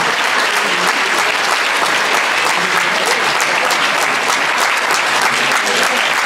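Audience applauding: many hands clapping at once into a steady, dense patter.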